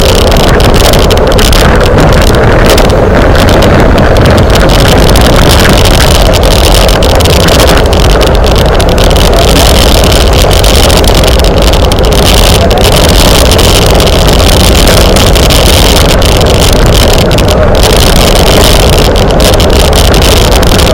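Loud, steady wind noise buffeting a camera microphone carried on a bicycle moving at race speed.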